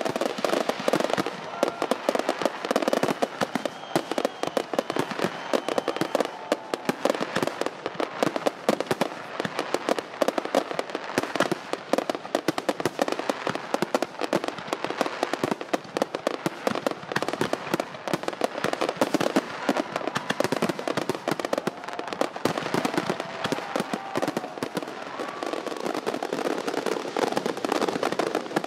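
Fireworks going off continuously: a dense, unbroken run of overlapping pops and crackles.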